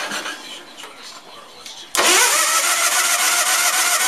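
A 20 hp Onan twin-cylinder lawn tractor engine being cranked on its electric starter. The cranking stops at the start, and after a pause of about two seconds the starter spins up again with a quick rise in pitch and cranks steadily. The engine does not catch: the owners suspect it is flooded.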